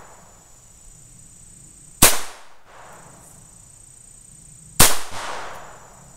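Two shots from a Ruger Mark II .22 LR semi-automatic pistol, about three seconds apart, each a sharp crack with a short echoing tail. Insects chirr steadily in the background.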